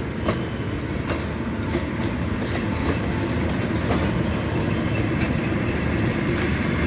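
State Railway of Thailand passenger coaches rolling past: a steady rumble of wheels on rail, with scattered sharp clicks as the wheels pass over rail joints.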